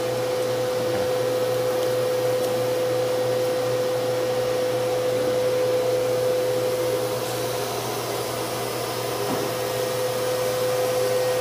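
Steady drone of running workshop machinery at a CNC router, a noisy rush with one constant hum tone through it; it dips slightly about seven seconds in and comes back up.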